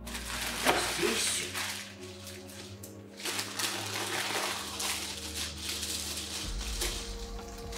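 Plastic bags rustling and crinkling as they are pulled out of a parcel and handled, with a few sharper crackles.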